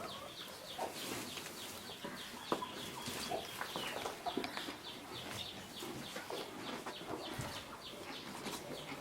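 Baby chicks peeping in a flock: a steady stream of short, high peeps, several a second, with a few lower calls mixed in.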